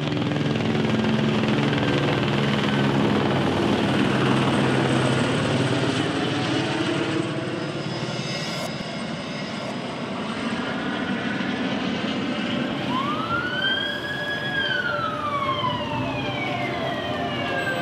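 Noisy night street ambience with a steady low drone, then about three-quarters of the way in a police siren wails, rising, holding and falling slowly, with the next rise starting near the end.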